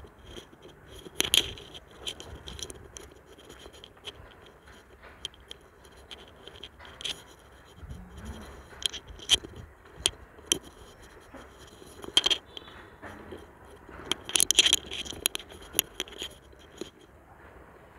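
Handling noise on a handheld phone: irregular scrapes and sharp clicks of the hand rubbing against the phone close to its microphone, loudest about a second in, again near the middle and in a quick cluster near the end.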